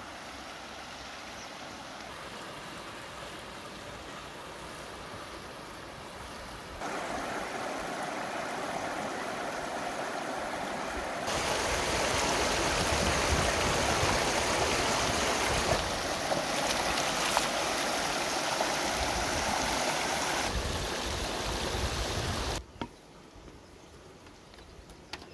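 Shallow, stony river rushing steadily, with splashing as a rattan tray of pineapples is rinsed in the current. The rush gets louder in two steps and is loudest through the middle, then cuts off near the end to a much quieter background with a single light knock.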